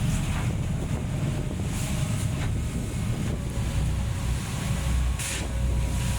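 Wind buffeting the microphone over the steady low rumble and hum of a catamaran party fishing boat at sea, with a short hiss about five seconds in.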